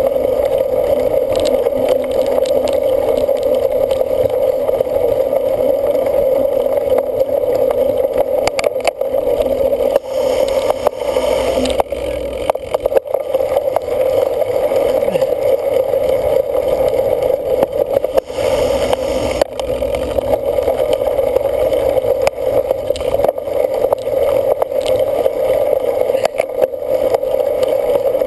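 A cyclocross bike being ridden hard: a steady rushing drone of wind and tyre noise, with scattered clicks and rattles from the bike over rough ground.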